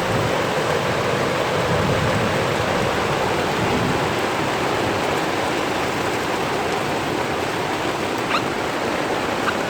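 Torrential rain pouring down in a dense, steady rush, with two faint short rising chirps near the end.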